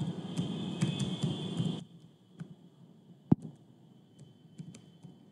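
Sparse computer keyboard keystrokes and mouse clicks, typing in a Wi-Fi password, with one sharper click about three seconds in. A low background hum runs under the first two seconds and then cuts off.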